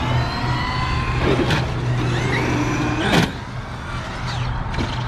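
Electric RC monster truck's motor whining, rising in pitch as it speeds up and then falling off, with two hard knocks about 1.5 s and 3 s in, the second the loudest.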